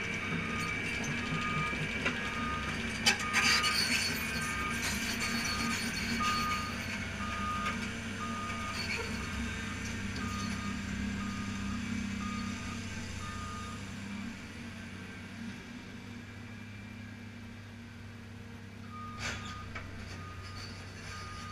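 Caterpillar 330C excavator's diesel engine running as the machine tracks, its travel alarm beeping steadily at a bit under two beeps a second. The beeping stops for a few seconds about two-thirds of the way through, then starts again. There is a sharp metallic clank about three seconds in and another near the end.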